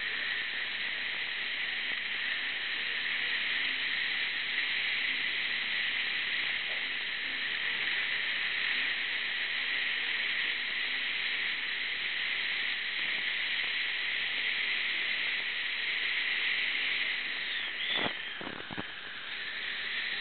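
Dental suction tip hissing steadily as it draws air and water from the mouth, with a few clicks and a brief change in the hiss near the end.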